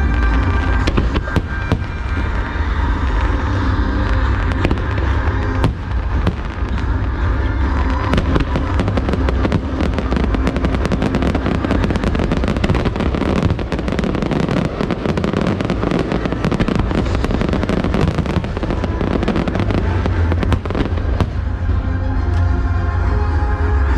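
Fireworks display: a dense, continuous crackle of many bursts, heaviest through the middle, over loud music with a heavy bass that is strongest near the start and end.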